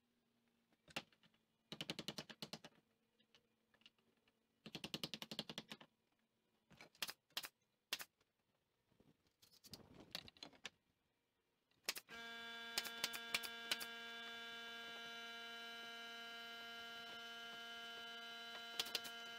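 Faint clusters of rapid clicks and single knocks from a pneumatic nailer driving nails into a 2x4 wall frame. About twelve seconds in, a steady hum with several tones starts and runs on under a few more clicks.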